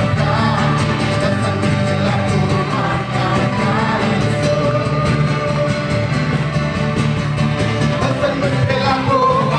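A song with a singing voice over instrumental backing, at a steady loud level.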